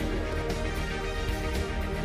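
Background music laid over the video.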